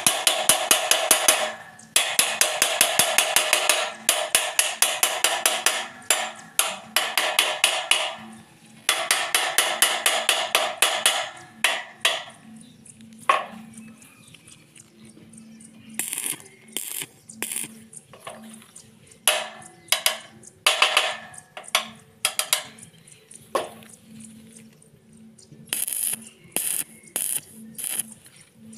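Stick (arc) welding with 2.5 mm electrodes: a crackling sizzle in several bursts of two to four seconds, like tack welds. After that come scattered sharp metal clinks and knocks, over a low steady hum.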